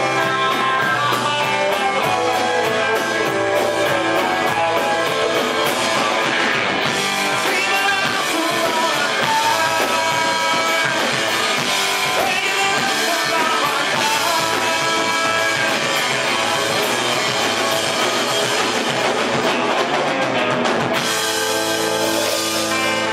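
Live rock band playing a spaghetti-western-style number, with electric guitar and drum kit.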